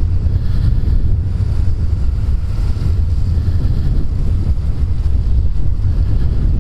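Wind buffeting a helmet-mounted microphone on a motorcycle at road speed: a loud, steady low rumble, with the hiss of tyres on the wet road underneath.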